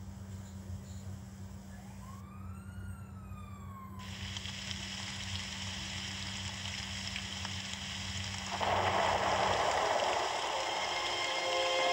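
Audio from a VHS tape starting to play: a steady low electrical hum, a short tone that rises and then falls, then tape hiss that builds into loud static about nine seconds in, with steady tones starting near the end.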